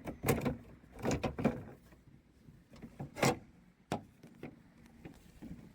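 Plastic centre brake light assembly being worked loose and pulled off the hatch: several short knocks and rattles, the loudest just after three seconds, with one sharp knock near four seconds.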